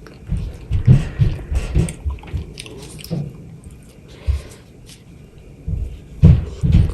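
Close-miked chewing of juicy mango: irregular wet mouth clicks and smacks with low thumps, loudest about a second in and again near the end.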